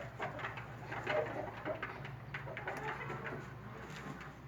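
Domestic pigeons cooing, several short calls overlapping.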